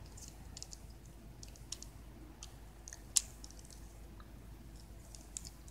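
Small plastic clicks and ticks of a Transformers action figure being handled and its joints moved as it is transformed, with one sharper click a little past halfway.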